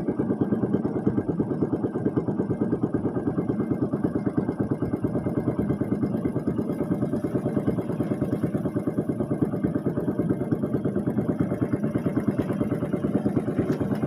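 Small engine running steadily at an even speed, with a fast regular pulse throughout.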